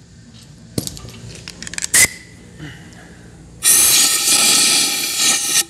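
A few clicks and a sharp knock, then, about three and a half seconds in, a hiss of compressed air lasting about two seconds from a pistol-grip air blow gun blowing out the inside of a rally shock's damper tube; it cuts off sharply.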